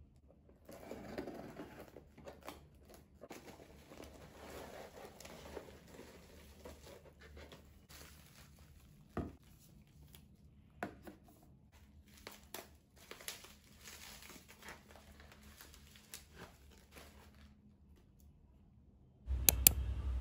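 Unpacking a cardboard delivery box: scissors snipping packing tape, plastic packaging and paper filler crinkling and tearing, and items set down on a wooden desk with light knocks. About a second before the end, a loud low thump.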